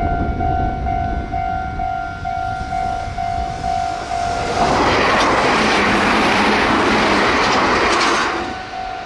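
Japanese level-crossing warning bell ringing in a steady electronic ding about twice a second over the rumble of an approaching train. About four and a half seconds in, the train passes at high speed; its rushing noise and wheel clicks over the rail joints drown out the bell for about four seconds, then the bell is heard again.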